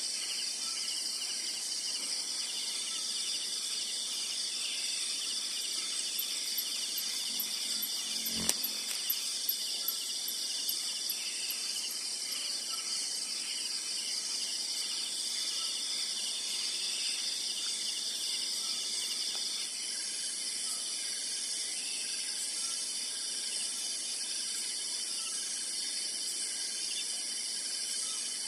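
Steady night chorus of insects, several layers of high continuous buzzing and trilling, one of which stops about twenty seconds in. A single soft knock comes about eight seconds in.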